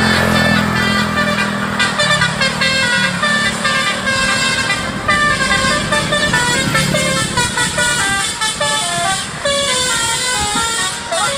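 Telolet basuri horns on a bus, several horn tones stepping up and down in quick succession to play a tune. A low engine hum runs underneath in the first two seconds and again midway.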